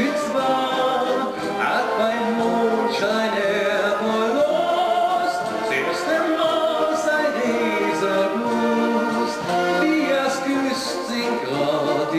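Wind band of clarinets, trumpets and brass playing a Bohemian folk song, with a man singing over the band.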